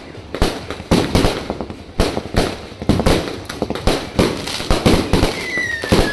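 Fireworks going off in a rapid, irregular run of sharp bangs, several a second, as aerial shells and comets burst. A whistle glides slightly down near the end.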